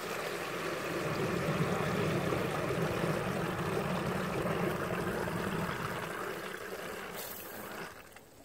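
Water spewing and rushing out of a leaking connector on a sump pump's discharge line while the pump runs, a steady rush that fades away about eight seconds in. The joint is leaking, so the water pours out at the base of the house instead of being pushed up and away.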